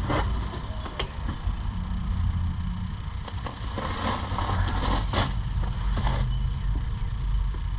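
A steady low rumble like an idling engine, with a few sharp clicks and a stretch of rustling and scraping about three to six seconds in.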